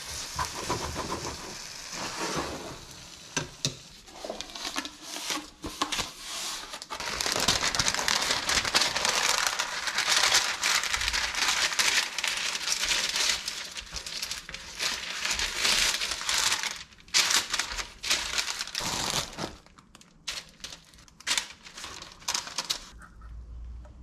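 Baking paper rustling and crinkling as it is handled and spread over a baking tray, the loudest sound, through the middle. Before it, a spatula stirring minced beef in a frying pan, and near the end a few light clicks and knocks.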